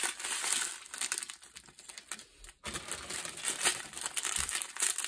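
Small plastic bags of diamond-painting drills crinkling as they are handled, with a short pause about halfway through.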